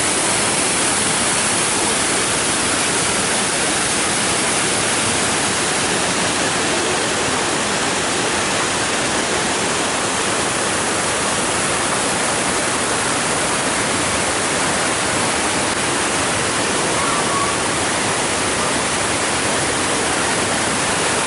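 Waterfall cascading over rock ledges into a pool: a steady, unbroken rush of falling water.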